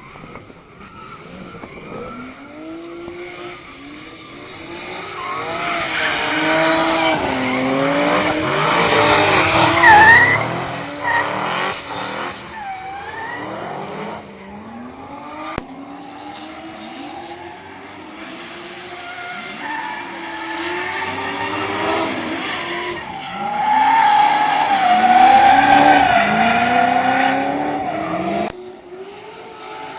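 Drift cars' engines revving up and down repeatedly as they slide, with tyre squeal. The sound swells to loud passes about ten seconds in and again in the last third.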